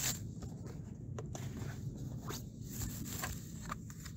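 Small clicks and rustles from hands handling a drone remote controller and its cardboard box, over a steady low rumble.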